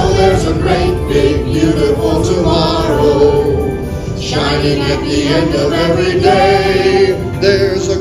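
Recorded song from an animatronic stage show: music with a group of voices singing together, played over the theatre's sound system.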